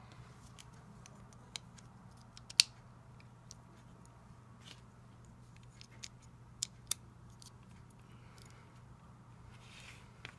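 Plastic Lego bricks and plates clicking as they are handled and pressed together: a handful of sharp clicks, the loudest about two and a half seconds in, over a low steady hum.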